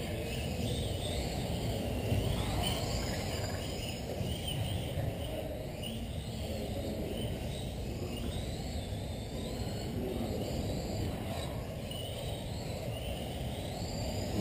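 Electric RC cars' motors whining at a distance, the high pitch rising and falling as they speed up and slow down around the track, over a steady low hall rumble.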